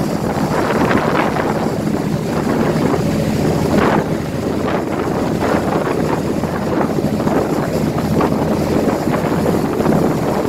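Wind buffeting the microphone and water rushing over the steady low hum of a boat engine.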